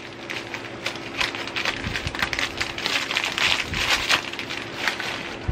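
Clear plastic wrapping crinkling and crackling as it is handled and peeled off a small item, a dense run of crisp crackles.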